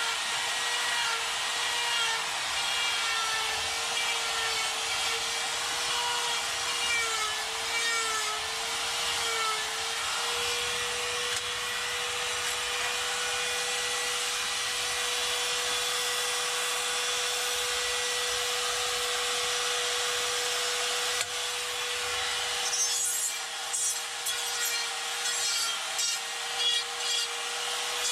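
Die grinder spinning a rotary burr against wood, a high motor whine over rough grinding noise. The whine dips and wavers under load for the first several seconds, then holds steady, and near the end the grinding comes and goes in short strokes.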